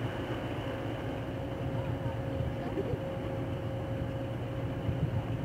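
Low, steady drone of the engines of purse-seine fishing ships moving out of the harbour, with a faint steady hum running through it.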